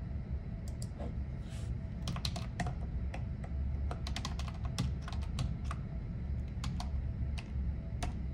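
Typing on a computer keyboard: quick, irregular keystrokes in short runs with pauses between them, over a steady low hum.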